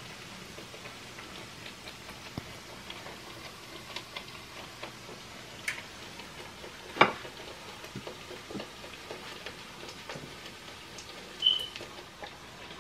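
Hot cooking oil crackling faintly in a frying pan with scattered small ticks, and a sharp knock about seven seconds in and a short clink about a second before the end.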